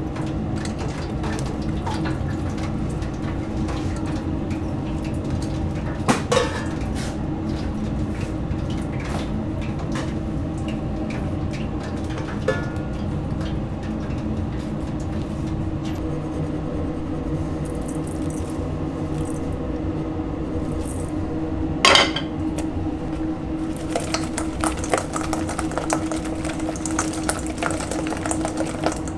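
Stainless steel mixing bowl being handled with fried chicken wings in it: scattered metal clinks, with a sharp clank about 6 seconds in and another about 22 seconds in. Near the end the wings are tossed in the bowl and the rattling gets busier. A steady hum runs underneath.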